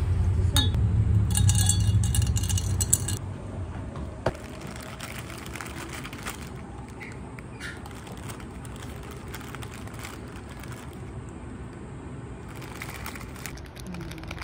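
A loud low rumble that dies away about three seconds in, then quiet café background with a sharp click about four seconds in and a few faint knocks.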